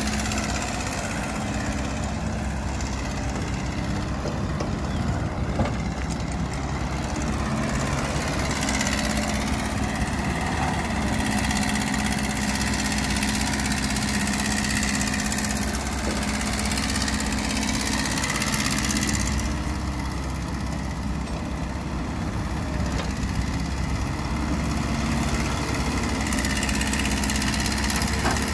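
Heavy diesel engines of dump trucks and a tracked excavator running steadily, with the level swelling a little now and then.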